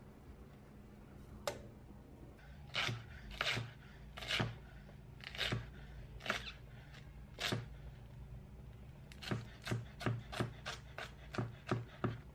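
A chef's knife slicing through cabbage and knocking on a wooden cutting board. The strokes come about once a second at first, then turn into a quicker run of about nine cuts near the end.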